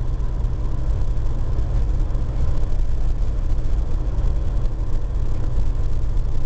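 Heavy truck's engine and road noise heard inside the cab while cruising at highway speed: a steady, low drone that does not change.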